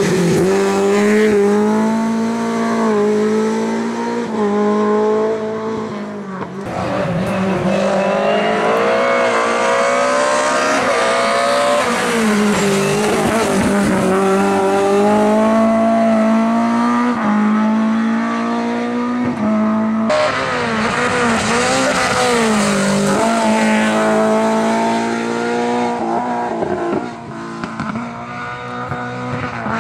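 A Lada 2107 rally car's engine revving hard, its pitch repeatedly holding high, dipping and climbing back as the driver shifts and lifts. The sound breaks off abruptly twice, about a quarter and two-thirds of the way through.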